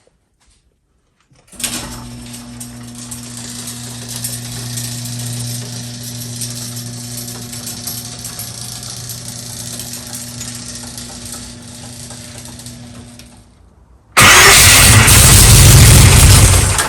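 An electric garage door opener runs with a steady hum for about twelve seconds and stops. About fourteen seconds in, a much louder burst of about two and a half seconds follows: the 8-71 supercharged Chevy V8 being cranked over to start.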